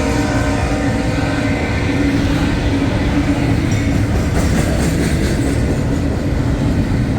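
Long CSX freight train rolling past: a steady rumble and clatter of steel wheels on rail as the cars go by. The chord of the lead locomotive's stuck K5HL air horn dies away in the first couple of seconds.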